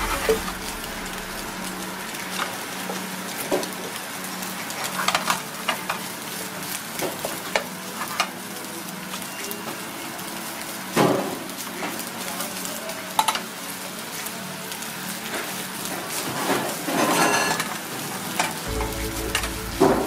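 Scrambled egg and rice frying in a nonstick pan, sizzling steadily. A wooden spatula scrapes and taps against the pan again and again as it stirs the fried rice.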